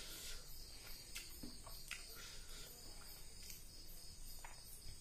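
Crickets chirring steadily, with an even, rapidly repeating pulse. Over it come faint, irregular clicks of eating: fingers working rice and fish curry on the plate, and mouth sounds.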